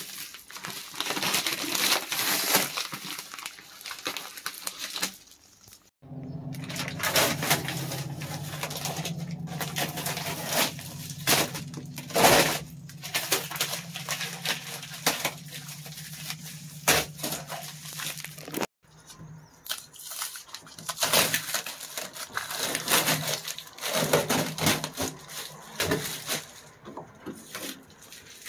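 Plastic sheeting crinkling and blue painter's tape being peeled and torn off a car's interior panels and glass, in several stretches. A steady low hum runs under the middle stretch.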